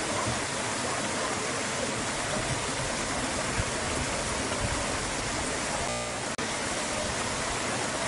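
Stream water running between boulders, a steady rush with no change in level. The sound cuts out for an instant about six seconds in.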